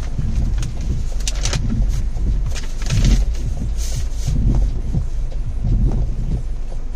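Steady low rumble of a moving vehicle, with uneven bumps and scattered light clicks over it.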